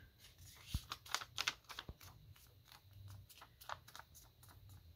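Sheet of one-sided origami paper rustling and crinkling as it is folded in half and the crease pressed with the fingers: soft irregular rustles and small clicks, busiest about one to two seconds in.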